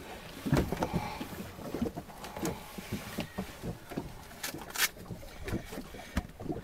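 Irregular knocks, bumps and clicks of people handling gear and moving about on a small fishing boat, with a couple of sharper clicks a little past the middle.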